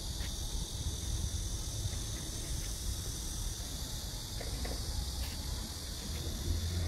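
A steady chorus of insects chirring over a low rumble, with a few faint clicks.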